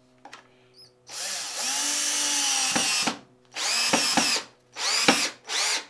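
Cordless drill/driver driving a stainless steel screw into a wooden slat: quiet small clicks, then about a second in a long run of the motor lasting some two seconds, followed by three short bursts of the trigger.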